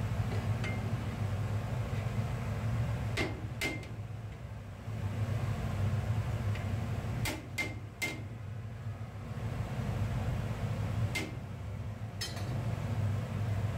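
A long metal spatula knocking against a large aluminium cooking pot as cooked biryani rice is mixed: several short metallic clinks that ring briefly, some in quick pairs, over a steady low hum.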